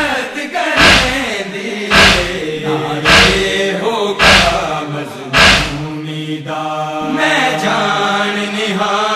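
A group of men's voices chanting a Shia noha (lament) in unison, with loud rhythmic matam chest-beating thumps about once a second. The thumps stop about six seconds in, while the chanting carries on.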